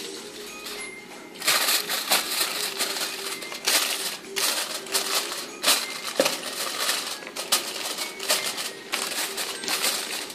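Aluminium foil crinkling and crackling as hands press and fold a sheet of it around a bowl. It starts about a second and a half in and goes on in irregular crackles. A faint steady hum sits underneath.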